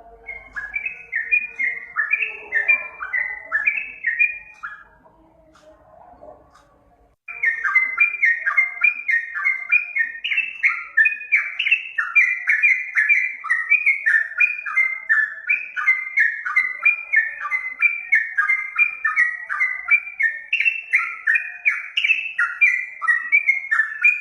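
Yellow-vented bulbul (trucukan) song: a fast chattering run of short notes, each sliding downward. The song drops away about five seconds in and resumes abruptly about seven seconds in, continuing without a break.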